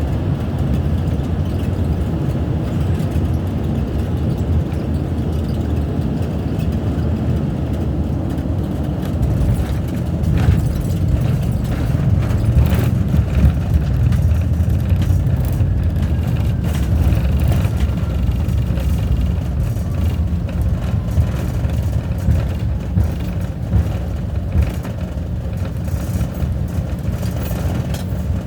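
Cabin noise of a twin-propeller airliner landing: a loud, steady low rumble from the engines and propellers. From about ten seconds in it grows louder and rougher, with scattered knocks and rattles.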